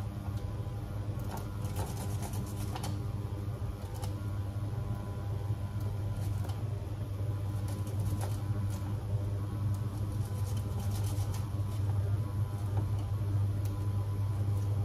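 A steady low hum with scattered light clicks and taps from hands working food in a ceramic mixing bowl.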